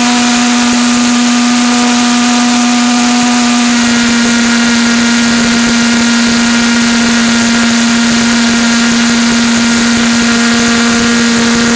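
Beck Technologies 4 lb thrust thermojet, a valveless stainless-steel pulsejet running on propane: a loud, steady drone on one strong low pitch with higher overtones, over a dense hiss.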